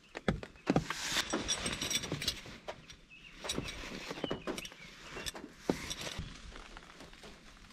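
Nylon stuff sacks rustling as they are handled, with clicks and light metallic clinks from the folded tent pole sections and titanium tent pegs inside.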